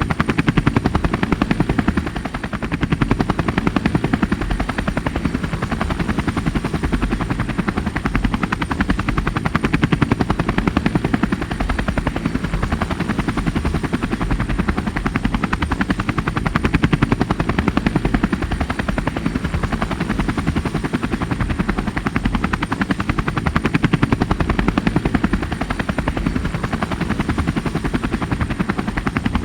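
DJI Phantom 3 Standard quadcopter's propellers whirring steadily with a rapid chopping pulse, swelling and easing slightly in loudness every few seconds.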